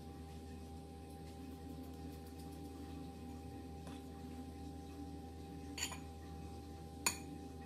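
Steady electrical-sounding hum of several held tones, with two sharp clinks near the end, a little over a second apart, from a metal spoon knocking against a glass mixing bowl while scooping mashed potato.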